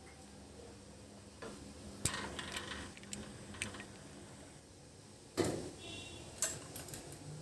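Cookware being handled: a scatter of short clinks and knocks of metal pans and a rack, the loudest a knock about five and a half seconds in.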